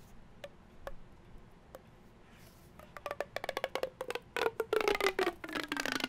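Orange corrugated plastic pop tube being stretched out, its ribs snapping open: a few single clicks at first, then a dense run of quick pops and clicks through the second half.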